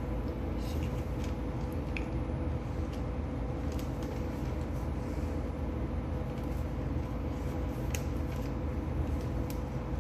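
A steady low rumble with a faint constant hum underneath, and a few light clicks scattered through it.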